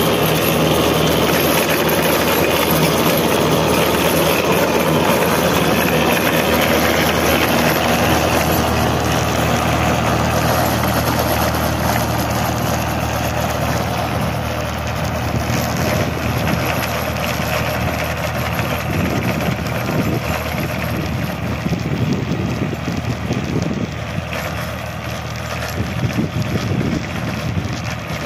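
Tractor diesel engine working steadily under load while its rear-mounted rotavator churns the soil. The sound is loud at first and drops a little about halfway through as the tractor pulls away.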